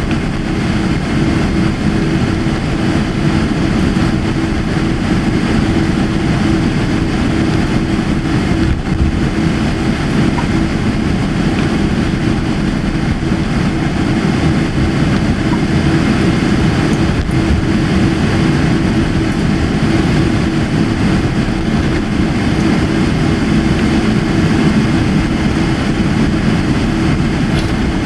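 Steady cabin noise inside a jet airliner taxiing after landing, a constant rush of engine and airflow noise with a steady low hum underneath and no change in level.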